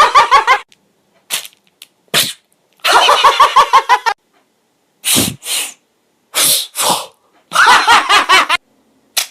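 A man's voice making a string of sound effects with his mouth: short breathy, sneeze-like blasts and longer rapid stuttering buzzes, each a second or less, with silent gaps between them.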